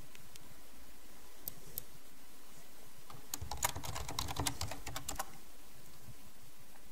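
Computer keyboard typing: a quick run of keystrokes lasting about two seconds as a password is entered, starting a little past the three-second mark. Two single clicks come earlier, about a second and a half in.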